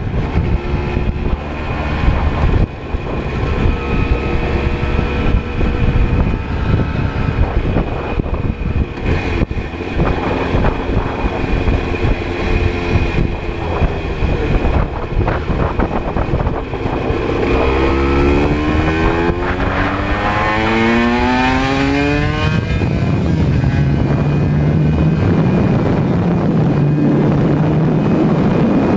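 Aprilia RS125's single-cylinder two-stroke engine running roughly and unevenly at low revs with an irregular crackle. From about 17 seconds in it revs up in a steeply rising whine, then holds a louder, steady high-revving note near the end.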